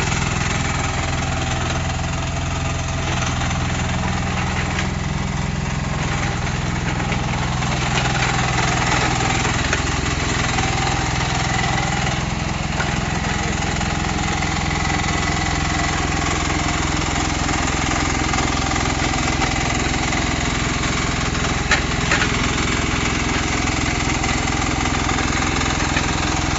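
Small steel-track excavator's engine running steadily, its note shifting a little about eight seconds in, with two short sharp knocks a little past twenty seconds in.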